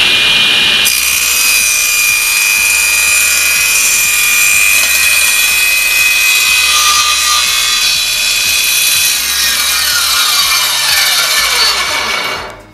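10-inch table saw with a 2200 W motor running while its blade rips a thin board, a dense cutting noise over a steady high whine. The sound stops abruptly near the end.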